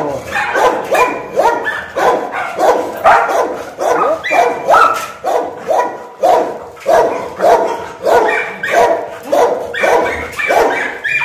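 Pit bulls barking over and over in a steady, even rhythm of about two barks a second, excited by the play.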